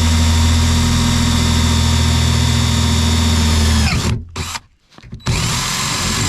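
Power drill running steadily as it bores a hole about the size of a wire through the truck's cab, stopping about four seconds in, then starting up again near the end.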